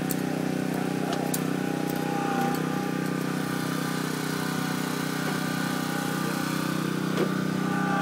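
Vehicle engine idling steadily, with a few light clicks in the first second and a half.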